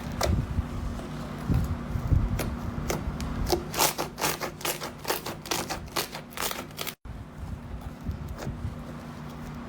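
Slime being pressed and pulled by hand: soft low squelches at first, then a rapid run of sharp sticky clicks and pops that thickens about three and a half seconds in. The clicks break off abruptly near seven seconds, leaving only a few scattered clicks.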